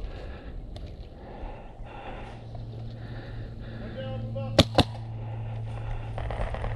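Two sharp airsoft gun shots about a fifth of a second apart, a little over halfway through, over a steady low hum.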